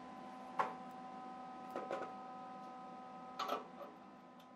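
A handful of light metallic clicks and taps as steel parts, a speed square and a MIG gun are set in place for tack welding, over a steady electrical hum.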